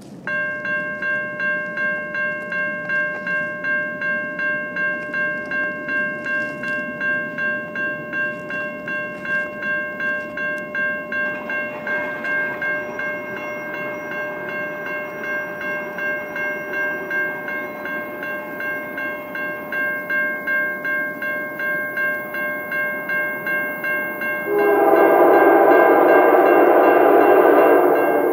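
A bell rings steadily, about two strokes a second, as a CN freight train approaches. About 24 seconds in, the lead locomotive's air horn sounds a loud chord, held for several seconds before it breaks off near the end.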